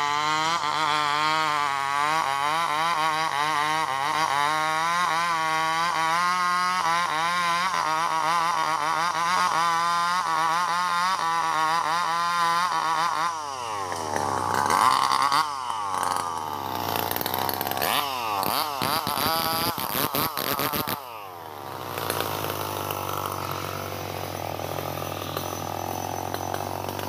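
Two-stroke chainsaw cutting branches off a felled log, its engine pitch wavering up and down as it works. About halfway through the revs swing sharply down and back up, and they drop briefly near three-quarters of the way.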